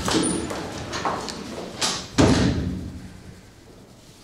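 A few sharp knocks, then one heavier thud about two seconds in that dies away slowly, like a door or a heavy object shutting.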